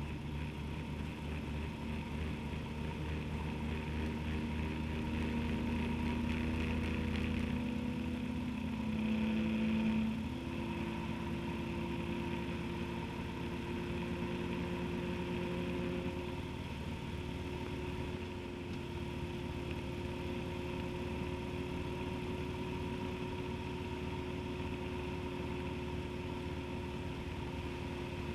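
Motorcycle engine running while riding, its note steady apart from rising and dropping a few times as the speed changes, briefly loudest about ten seconds in.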